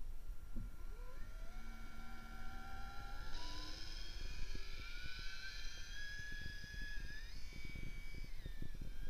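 Whine of a radio-controlled model's electric drive and propellers heard underwater: several tones rise in pitch in steps as the motor speeds up, then fall away near the end, over a low, uneven water rumble.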